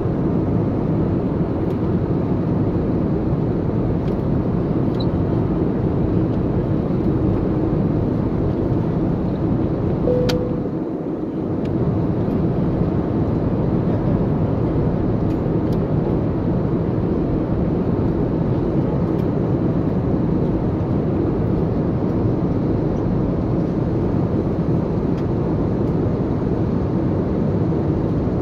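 Steady cabin noise of an airliner in flight: the engines and the airflow over the fuselage as a constant, even rushing drone, dipping slightly for a moment about eleven seconds in.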